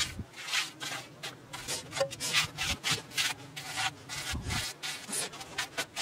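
A flat wooden float scraping over the damp mud top of a newly built stove, in quick repeated strokes, about three a second, as the surface is smoothed.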